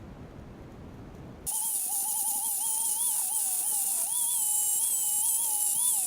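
Angle grinder grinding steel. It starts abruptly about a second and a half in, with a high whine that wavers in pitch as the load on the disc changes, over a hiss of grinding.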